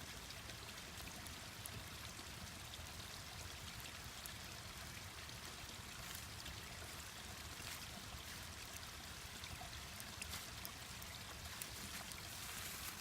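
Steady rushing of a mountain stream, with scattered small crackles and pops from a wood bonfire burning close by.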